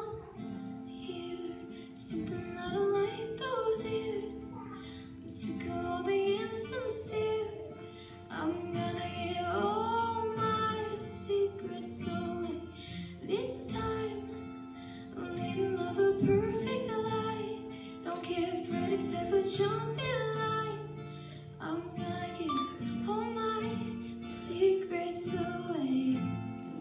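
A female voice singing a song over acoustic guitar, in phrases a few seconds apart.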